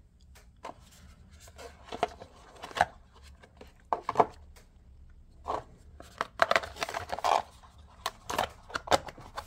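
Hands handling a Losi Mini-T 2.0 RC truck: irregular plastic clicks, taps and rustles as the wiring is tucked into the chassis and the plastic body shell is fitted back on.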